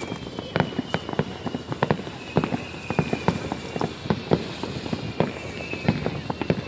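Fireworks going off all around: irregular sharp bangs and cracks several times a second, over a faint high whistle that slides slightly downward in pitch.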